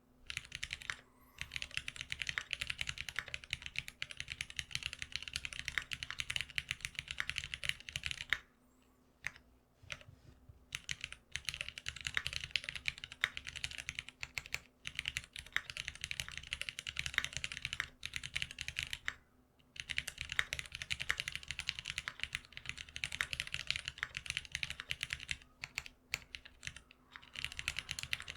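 Typing on a GeonWorks F1-8X custom keyboard fitted with Cherry retooled black linear switches, lubed and on 65 g long springs. It is a rapid, continuous clatter of keystrokes, broken by a longer pause about a third of the way in and a short one about two-thirds in.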